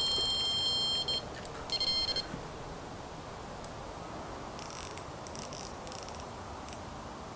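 Electronic carp bite alarm sounding a continuous high-pitched tone as a fish runs with the bait. It cuts off about a second in, then sounds again briefly, followed by faint rustling and clicks.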